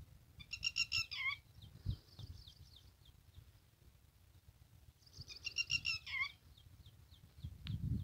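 Red-wattled lapwing (titehri) calling: two loud bursts of shrill notes, about half a second in and again about five seconds in, each ending with a downward slur. Fainter, quick chirping notes repeat between the bursts.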